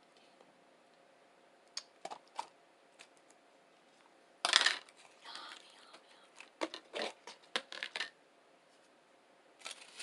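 Close-miked sounds of a breakfast burrito being eaten and handled: a few sharp clicks, a loud short crackle about four and a half seconds in, then a quick run of clicks.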